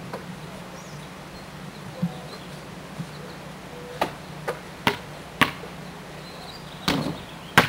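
Sharp, irregular clicks and knocks, about eight of them, coming closer together in the second half, over a steady low hum.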